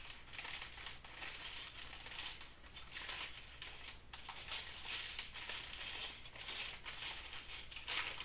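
Loose plastic Lego pieces clattering and clicking as a hand rummages through them, in repeated short bursts of rattling.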